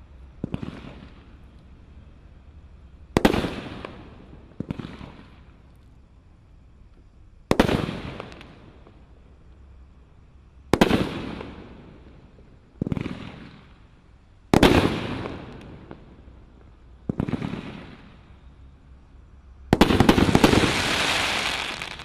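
Speed Trap 13-shot consumer fireworks cake firing: about eight separate shots a couple of seconds apart, each a sharp bang fading into a brief crackle. Near the end comes a dense stretch of crackling about two seconds long, the loudest part.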